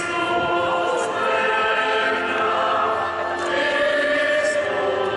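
Choir singing in long held notes; the chord changes about three and a half seconds in.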